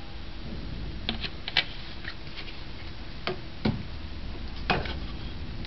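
About five irregular sharp clicks and ticks, heard while cooking oil goes into a hot aluminium pot on a gas stove, over a low steady hum.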